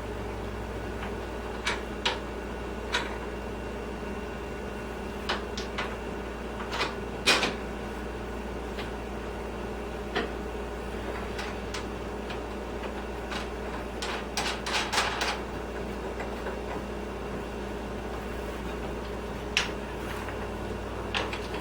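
Scattered clicks and knocks of plastic and metal mower handle parts being handled and fitted during assembly, the sharpest about seven seconds in and a quick cluster a little past the middle, over a steady low hum.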